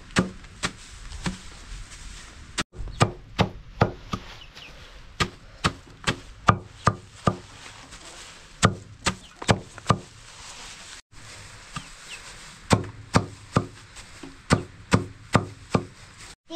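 Knife chopping food on a wooden board: sharp, separate strokes in uneven runs of about two a second.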